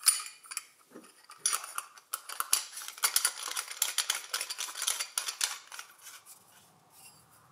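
Metal parts of a kitchen sink basket strainer clinking and scraping in the hands as a brass tailpiece is fitted to its underside: a quick run of small metallic clicks and rattles that dies away about six seconds in.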